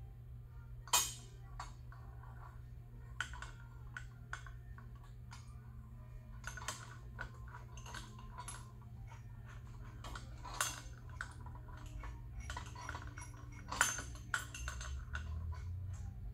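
Irregular metallic clicks and clinks from a bearing puller and long bar being worked on an aluminium electric-unicycle hub plate, trying to free the stuck steel bearing. The sharpest knocks come about a second in and twice in the second half.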